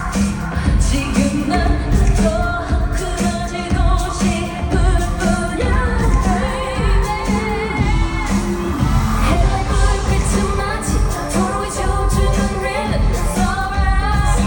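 A female pop singer singing live over an amplified backing track with a heavy, steady beat. The voice wavers with vibrato on held notes.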